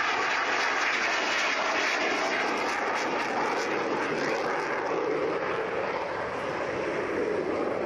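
BAe Hawk jet trainer's single Adour turbofan making a steady jet noise as the aircraft flies a display pass overhead and banks away.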